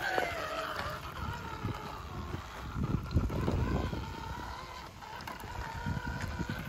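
Element RC Enduro Ecto rock crawler's electric motor and gear drivetrain whining as it crawls slowly over the obstacle, its pitch wavering with the throttle. Low buffeting of wind on the microphone comes and goes, strongest about three seconds in.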